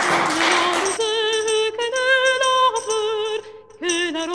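Applause dying away during the first second, then music with a singing voice holding long notes with vibrato.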